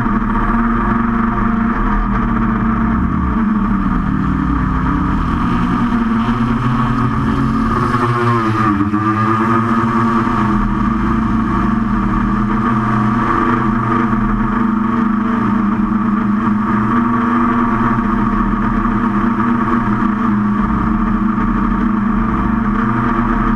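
QAV500 quadcopter's electric motors and propellers buzzing steadily in flight. Their pitch dips and climbs back about eight to nine seconds in as the throttle changes.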